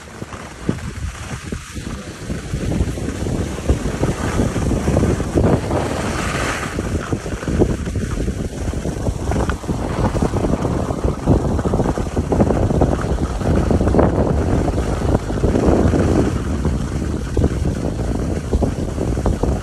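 Wind rushing and buffeting over the microphone of a skier moving downhill, with the hiss of skis sliding on snow underneath.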